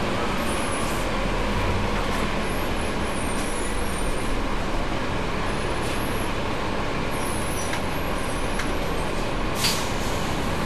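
Double-decker bus's diesel engine idling steadily while the bus stands still, with a short sharp hiss of air near the end.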